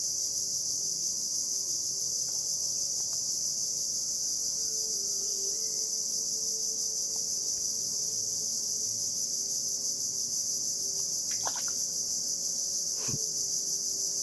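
Steady, unbroken high-pitched chorus of insects, with two brief sharp sounds near the end.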